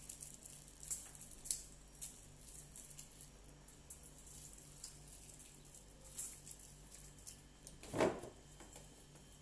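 Small eating and table-handling sounds: scattered light clicks and taps, with one louder short wet mouth sound about eight seconds in as fingers are sucked clean of chicken.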